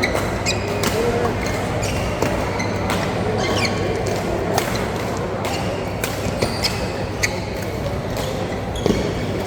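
Badminton rally on an indoor court: irregular sharp racket hits on the shuttlecock, with short high shoe squeaks on the hall floor and a steady murmur of hall noise.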